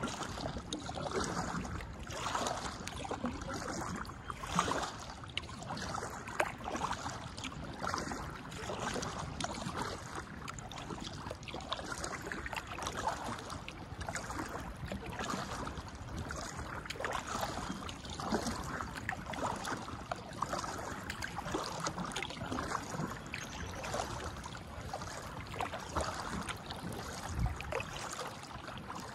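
Kayak paddle strokes through calm water, the blades dipping and splashing about every two seconds, with water running off them in between.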